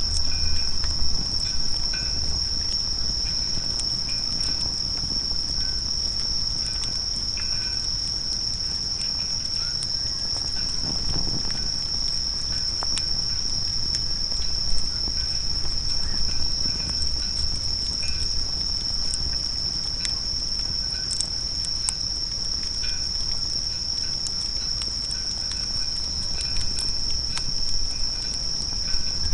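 Insects chirring in a steady, unbroken high-pitched drone, with scattered faint crackles from the campfire.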